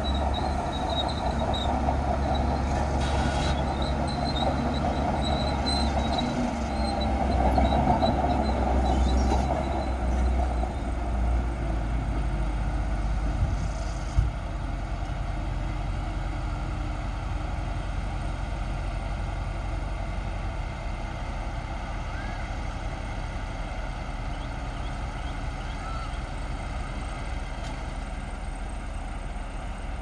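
Heavy diesel engines of a bulldozer and a dump truck running, louder and busier over the first dozen seconds, then settling to a steadier, slightly quieter run. A single sharp knock about fourteen seconds in.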